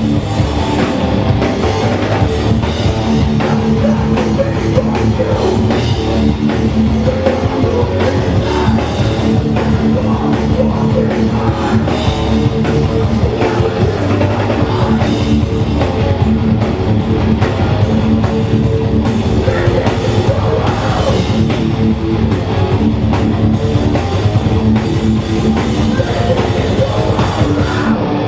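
Hardcore punk band playing live at full volume: distorted electric guitars, bass and drum kit in one dense, unbroken wall of sound.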